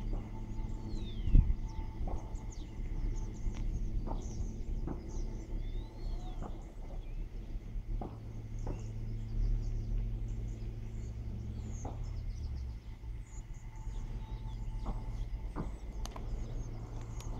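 Open-air ambience over a steady low rumble, with birds chirping now and then and scattered light knocks. A single loud thump about a second and a half in.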